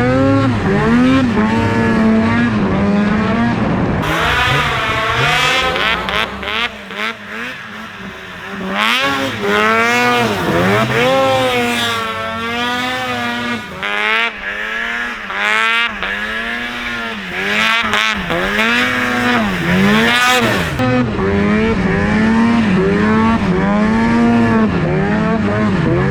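2004 Ski-Doo Rev snowmobile's 800 H.O. two-stroke twin engine revving up and down over and over during a test ride, its pitch repeatedly rising and falling, with wider, higher sweeps through the middle. The run is a check of freshly adjusted clutching, and the sled peaks just under 8,000 rpm: slightly under-revving.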